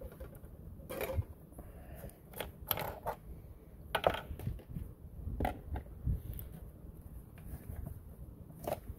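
Irregular light clicks, taps and scuffs of handling, roughly one a second, as a plastic oil jug and funnel are worked over the engine.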